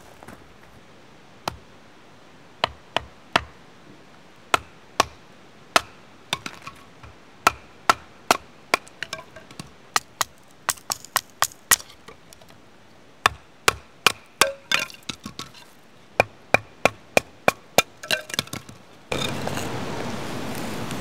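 Sharp wooden knocks of thin kindling being split on a wooden chopping stump: single strikes at first, then quick runs of two or three a second with short pauses. About two seconds before the end the knocks stop and a steady hiss takes over.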